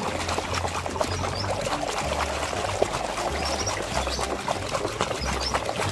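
Water pouring and splashing steadily as a muddy toy is washed and rinsed by hand, with background music's bass notes underneath.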